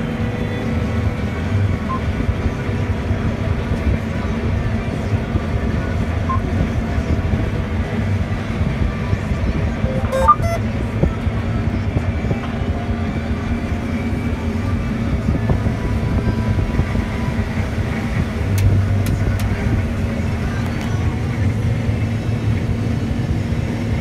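Combine harvester running steadily while cutting soybeans, its engine and threshing machinery making a constant low drone inside the cab. A brief click about ten seconds in.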